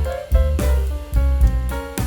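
Background music with a steady beat of drums and bass under sustained instrumental notes.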